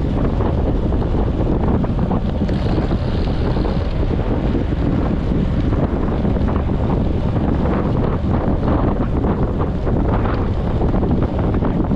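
Steady wind noise buffeting the microphone of a handlebar camera on a road bike moving at about 30 km/h: a loud, even, low rush.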